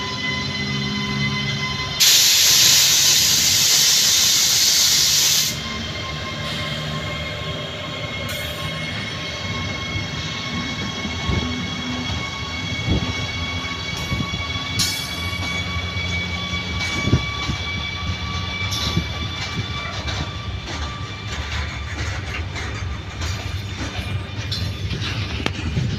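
WAG-12 twin-section electric freight locomotive passing slowly at close range, with a steady high whine. A loud hiss of air runs for about three seconds a few seconds in. Later, irregular wheel clicks over the rail joints come as the freight wagons roll past.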